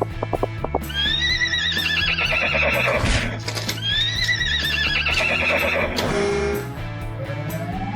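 Two horse whinnies over steady background music: long quavering calls, each about two seconds and falling in pitch, one after the other. A quick run of clicks opens the passage, and a rising glide comes near the end.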